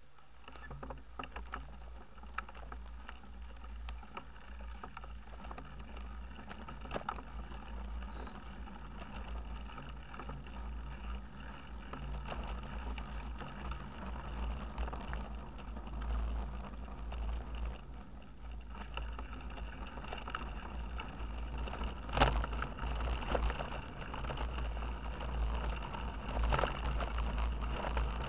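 Mountain bike ridden over a gravel and dirt track, heard from a camera mounted on the ride: a steady low rumble with rattles and knocks as the bike jolts over bumps. The sharpest jolt comes about 22 seconds in.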